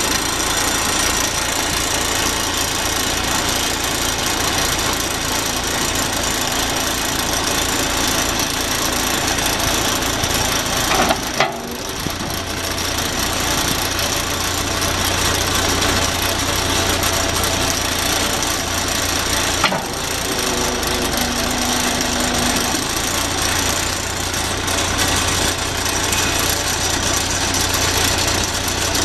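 John Deere 416 backhoe loader's diesel engine running steadily, with two brief breaks where the sound cuts.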